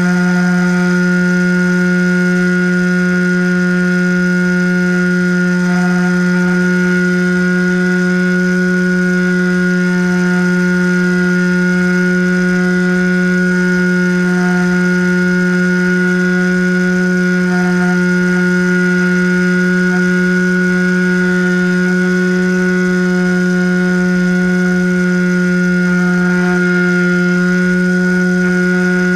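A model plane's motor and propeller droning at one unchanging pitch, heard from a camera mounted on the aircraft, with a faint low wind rumble underneath.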